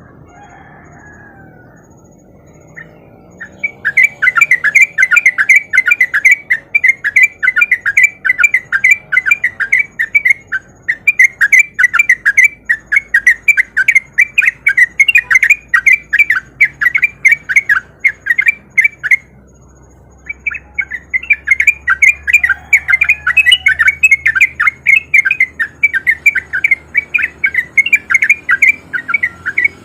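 Yellow-vented bulbul (trucuk) singing a fast, unbroken string of short chattering notes, the rapid 'ropel' song of a bird in full voice. It starts a few seconds in and pauses for about a second two-thirds of the way through.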